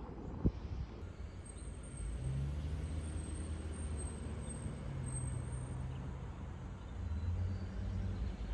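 A vehicle engine running with a low, steady hum that grows fuller about two seconds in, with a single knock about half a second in.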